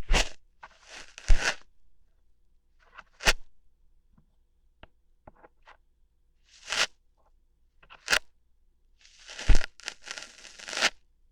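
Close-miked ASMR ear-hair plucking: a series of short crackling, tearing pulls at irregular intervals, with a few faint ticks in the gaps between them.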